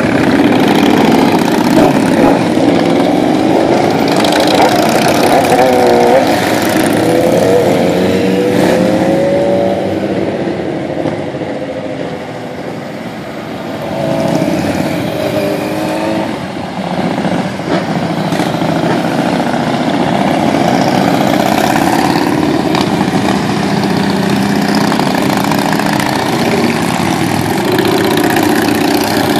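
Motorcycle engines of a procession running past at close range, their pitch sliding up and down as bikes go by. The sound eases for a few seconds near the middle, then builds again as more riders pass.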